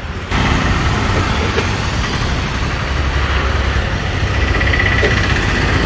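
Steady road-traffic noise with a low engine rumble.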